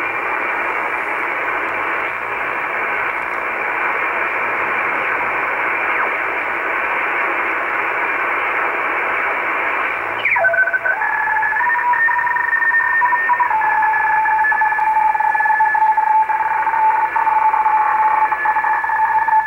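Icom IC-R8500 communications receiver in upper sideband on the 3 MHz shortwave band, putting out steady static hiss. About halfway through, as the tuning knob is turned, a whistle sweeps down in pitch and settles into two steady tones from a tuned-in signal. The tones step in pitch a couple of times as tuning goes on.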